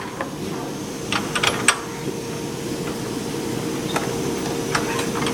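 Steady fan-like whirring with a constant hum, and a few light clicks and knocks from handling and adjusting the mitre saw, mostly between one and two seconds in.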